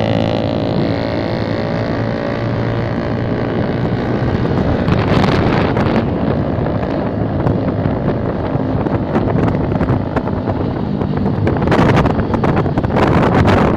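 Suzuki GSX-R150 single-cylinder engine running through an aftermarket CLD exhaust while the bike is ridden, heavily overlaid by wind buffeting the microphone. The buffeting rises about five seconds in and again near the end.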